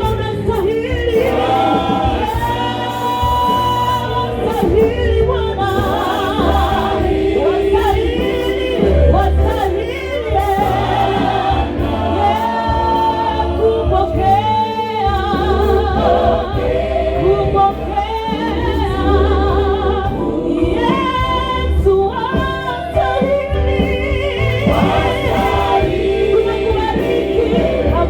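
Gospel choir singing with instrumental backing and a steady bass line.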